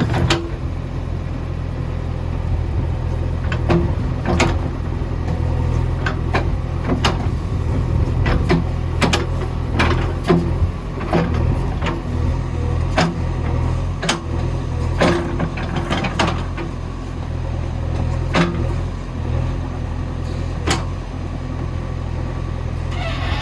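JCB backhoe loader's diesel engine running steadily while the machine works, with repeated sharp knocks and clanks every second or so.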